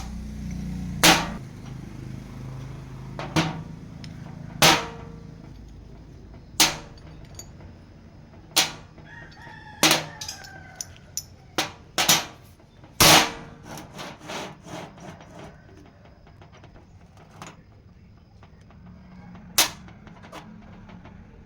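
A rooster crowing in the background, under a series of sharp knocks that come every second or two and crowd closer together a little past the middle.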